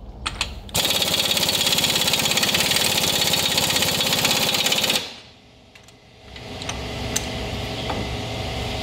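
Pneumatic impact wrench hammering rapidly for about four seconds, driving on the CV axle nut at the front wheel hub, then stopping abruptly. A steadier, quieter mechanical hum rises in the last few seconds.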